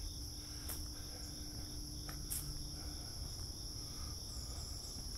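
Crickets trilling steadily, a continuous high-pitched drone, with a couple of faint clicks.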